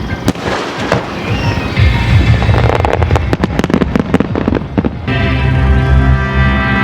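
A barrage of aerial fireworks, shells bursting and crackling in rapid succession over music for about five seconds. The bangs then stop and the music carries on alone.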